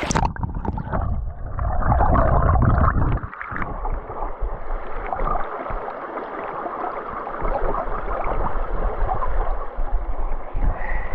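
Creek water running, heard muffled, with heavy low rumbling on the microphone during the first three and a half seconds.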